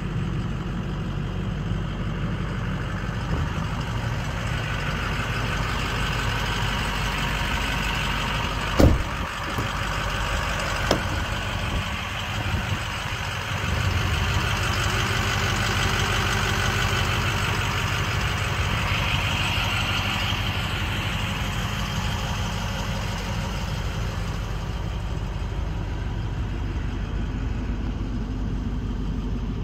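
Ford 6.0 Powerstroke turbo-diesel V8 idling steadily, heard from the cab, a little louder from about fourteen seconds in. A single sharp thump about nine seconds in, with a lighter knock two seconds later.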